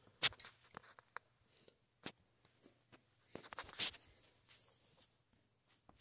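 Scattered light clicks and knocks: a few in the first second, one about two seconds in, and a quick cluster past the three-second mark, the loudest near four seconds. A faint steady low hum runs underneath.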